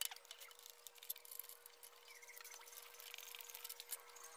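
Near silence with a few faint, scattered metal clicks: the loosened steering-stem locknut of a Yamaha Mio scooter being turned off by hand. A faint steady hum sits underneath.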